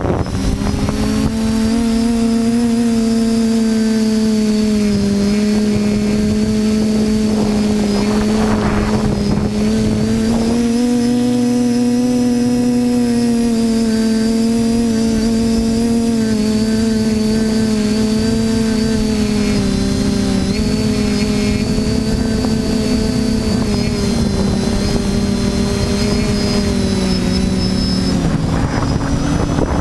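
TBS Discovery FPV quadcopter's electric motors and propellers buzzing steadily in flight, the pitch drifting up and down a little with throttle and rising near the end.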